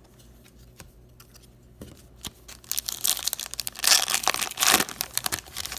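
A hockey card pack wrapper being torn open and crinkled by hand: a crackly, papery rustle with small clicks starting a couple of seconds in, loudest near the middle.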